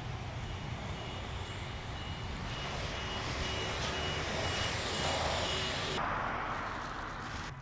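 Street traffic: a passing vehicle that grows louder to a peak about five seconds in, with a high electronic beep repeating about twice a second. The sound cuts off abruptly near the end.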